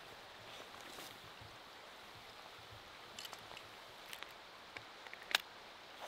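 Small plastic clicks and knocks from a magnetic net holder on a wading belt as the net is pulled free and its clip is slid back down into the receiver, the loudest snap coming about five seconds in as the magnet seats it. Under them is a steady faint hiss.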